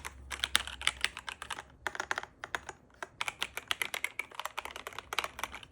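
Typing on a VGN N75 Pro mechanical keyboard with VGN Steam Wave Pro switches: quick runs of sharp keystroke clicks, broken by brief pauses about two and three seconds in.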